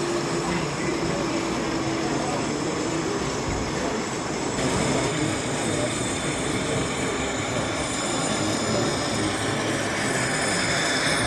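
Model trains running on an exhibition layout, with the steady murmur of the hall behind them. A thin, high, squeal-like tone comes in near the end.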